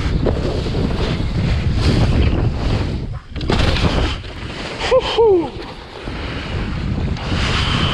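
Wind buffeting the microphone over the hiss of a kiteboard planing across choppy water. The rushing drops out briefly about three seconds in, a burst of spray follows, and two short falling tones sound about five seconds in.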